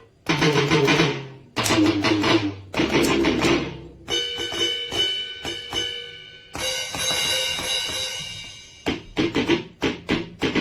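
Music led by a drum kit: bass drum and snare hits, then a stretch of ringing, metallic cymbal- or bell-like tones about halfway through, and a quick run of hits near the end.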